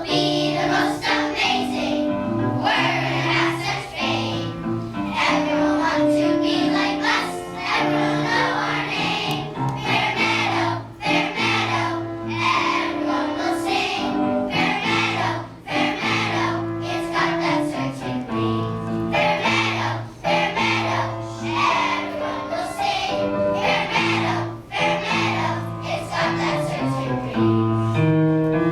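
A group of children singing a song together over an instrumental accompaniment with a moving bass line.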